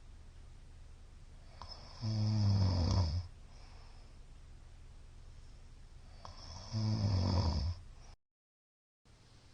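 A middle-aged man snoring loudly in his sleep: two long, rasping snores, one about two seconds in and one about seven seconds in, each lasting about a second, with quiet breathing between. The recording cuts out completely for about a second near the end.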